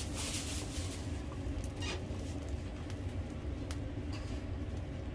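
A pot of thickened beef pares broth simmering on a gas stove: a steady low rumble with a few soft pops and brief scrapes.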